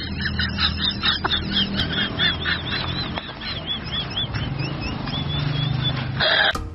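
An animal calling in a quick series of short, high chirps, about three a second, with a brief burst of noise near the end.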